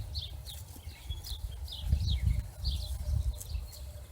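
Swallows twittering: quick, short, falling chirps, several a second, over a low, uneven rumble that swells about two seconds in.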